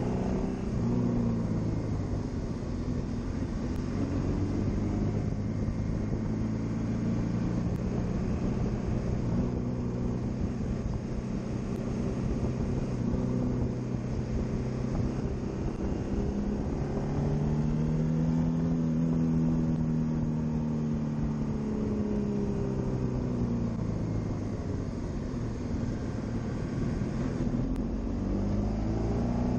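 Honda VFR800X Crossrunner's V4 engine under way on a winding road, its pitch rising and falling several times as engine speed changes, with the longest swell about two-thirds of the way through. A steady rush of wind and road noise runs beneath it.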